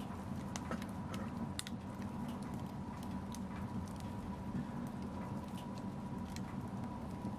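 Wood fire in a fireplace crackling: irregular sharp pops and snaps over a steady low rumble of the burning fire.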